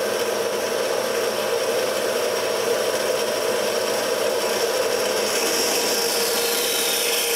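Harbor Freight horizontal metal-cutting band saw running steadily as its blade cuts through aluminum 2x2 square tube on a test cut. Near the end a high whine slides steadily down in pitch.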